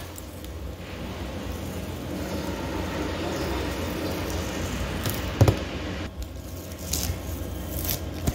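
Masking tape being peeled off an acrylic-painted canvas: a steady tearing noise, with a sharp snap about five seconds in and a few lighter ticks near the end.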